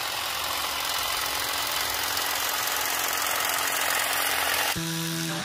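Saker 20-volt cordless hedge trimmer running steadily, its reciprocating blades cutting through dry, dead flower stems. It cuts off near the end and music comes in.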